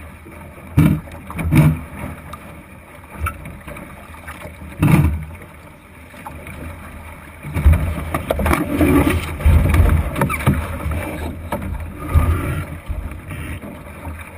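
Water and wind noise aboard a wooden Thistle sailing dinghy under way, with sharp thumps on the hull about a second in and again near five seconds. In the second half the noise grows louder and busier, with knocks and low rumbling as the boat tacks and the crew shift across to the other side.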